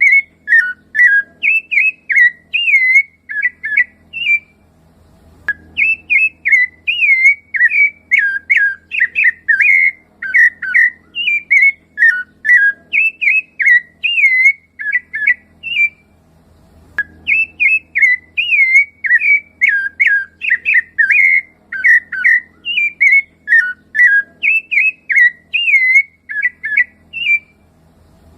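Rufous-bellied thrush (sabiá-laranjeira) singing: long runs of rapid, fluting whistled phrases, each note gliding up and down, broken by a few brief pauses.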